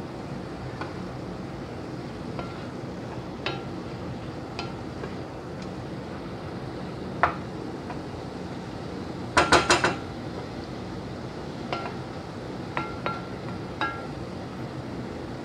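Wooden spatula stirring minced meat in a metal pot, knocking against the pot's sides with scattered clinks. The loudest moment is a quick run of about five knocks a little past halfway.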